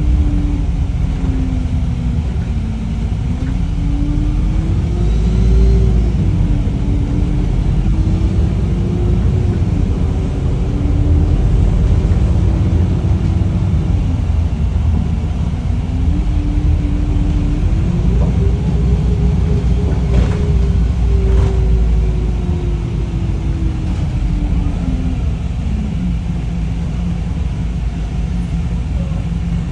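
Wright StreetLite single-decker bus under way: a steady low rumble of engine and road, with a drivetrain whine that rises and falls in pitch several times as the bus speeds up and slows down.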